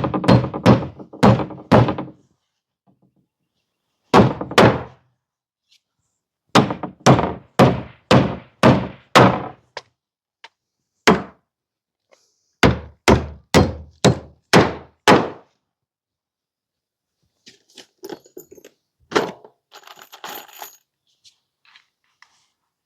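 Hammer driving nails through wooden battens into board siding: runs of sharp strikes about two a second, each run of five or six blows sinking one nail, with a single blow between runs. Near the end, fainter scattered knocks and clatter.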